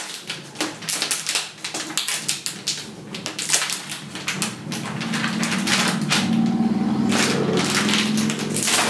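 Clinging protective plastic film being peeled off an iMac's screen: a run of crackles, then from about halfway a steadier rasping as a long stretch of film pulls away.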